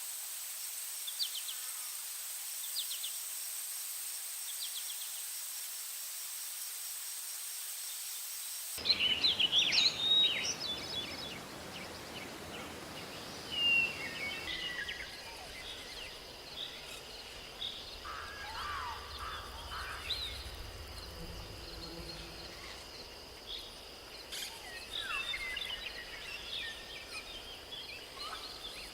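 Outdoor nature ambience: a steady high insect drone with a short chirping call repeating about every second and a half, then, about nine seconds in, an abrupt change to a busier mix of scattered bird chirps and calls over a steady insect tone.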